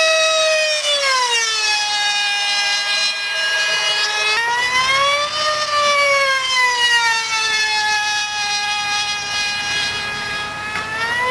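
F3D pylon-racing model plane's IR 40 two-stroke glow engine running at a very high, whining pitch as the plane flies past. The whine drops in pitch about a second in, climbs again around four and a half seconds, sinks slowly, and rises once more near the end.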